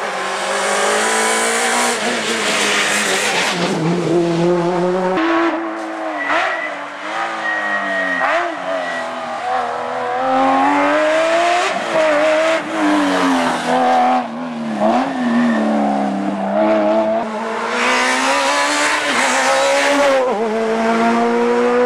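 Rally cars driven hard through tight tarmac bends, one after another: engines revving high, dropping at each gear change or lift, and pulling up again, with a short thin squeal about six to nine seconds in.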